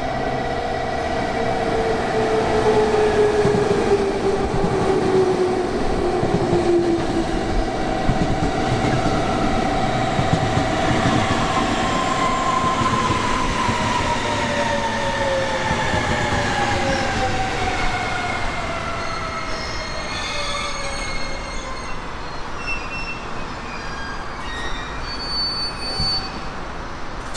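Electric train on the Kagoshima Main Line running through the station with wheel and rail noise. Its motor whine falls in pitch several times as it slows.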